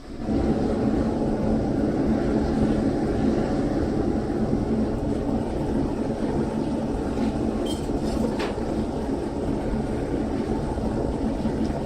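Propane foundry furnace burner roaring steadily with its blower fan turned up. The roar comes in suddenly at the start and then holds even.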